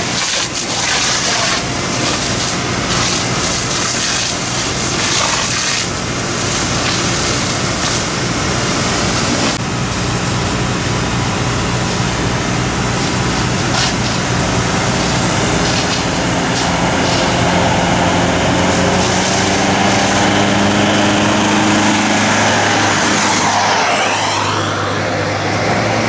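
Fire tender's diesel engine running steadily, with a low throbbing pulse, under the even hiss of a hose jet spraying water onto smouldering ground.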